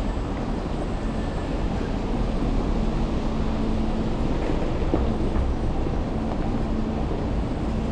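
Steady low rumble of vehicle noise with a constant low hum.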